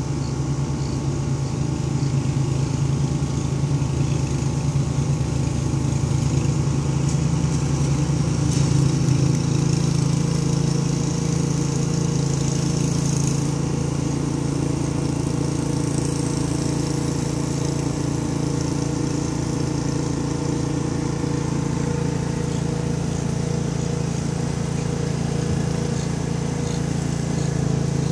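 Mother cat purring in a steady low rumble while nursing her kittens, close to the microphone.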